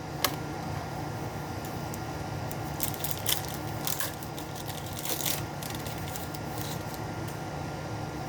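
Trading cards and their foil pack wrapper being handled: scattered crinkles and scrapes, thickest in the middle, over a steady low hum.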